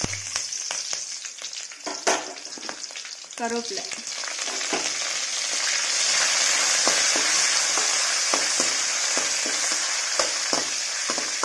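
Green chillies and curry leaves sizzling in hot oil with mustard seeds, a metal spatula scraping and tapping the pan as they are stirred. The sizzle grows louder and stays high from about four seconds in, once the curry leaves are in the oil.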